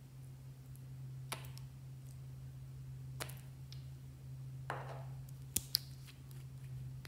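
Nail polish bottles being handled: a few separate small clicks and taps as the caps and brushes knock against the glass bottles, two quick clicks close together near the end as a cap goes back on.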